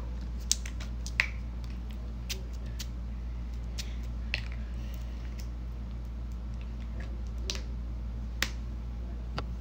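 Irregular sharp clicks and taps, a few of them louder, from handling a small plastic skincare bottle, over a steady low hum.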